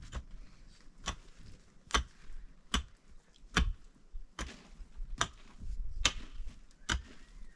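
Sharp knocks struck at a steady pace, about one every 0.85 seconds, nine in all, like a tool or blade striking repeatedly.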